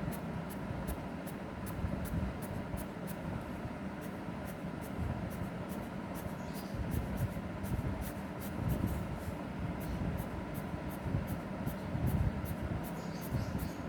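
Colour being rubbed onto paper in quick back-and-forth strokes, a faint scratching two or three times a second, over a steady low background rumble.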